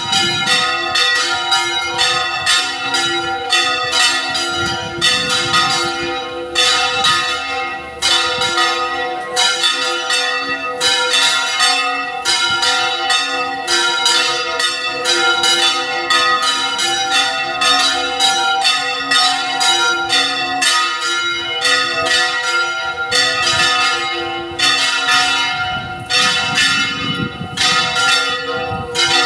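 Church bells ringing in a fast, continuous peal, the strokes coming several times a second and overlapping as they ring on.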